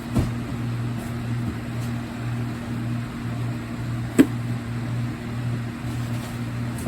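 Steady low machine hum, with a dull knock just after the start and a sharp click about four seconds in as smoke alarms and their boxes are handled and set down.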